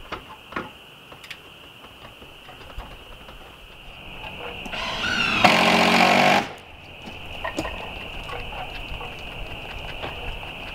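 Electric power saw whining up to speed and running for about two seconds near the middle, then cutting off suddenly. A few light taps come in the first second or so.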